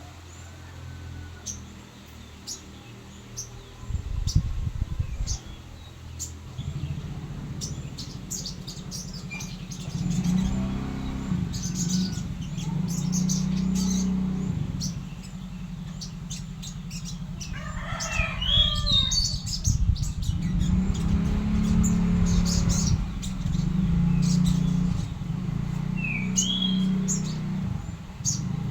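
Sogon songbird chirping: short high chips throughout, with a quick run of rising and falling notes about two-thirds of the way through. Underneath is a loud low rumble that swells and fades several times.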